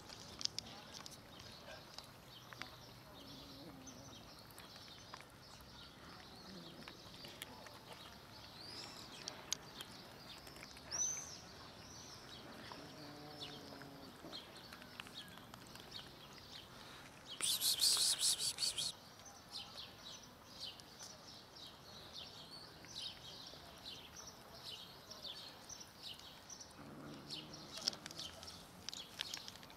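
Kittens and their mother eating wet cat food from a plastic container, with soft chewing and smacking and small birds chirping in the background. A little past the middle comes a louder rapid rattle lasting about a second and a half.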